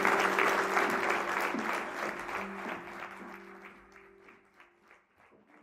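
Audience applauding, dying away over about four seconds, over background music holding a low sustained note that ends near the close.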